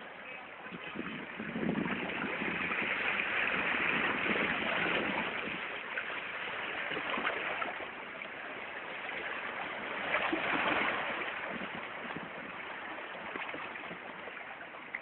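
Sea waves washing in, a steady rush of water that swells louder twice, for a few seconds near the start and again about ten seconds in.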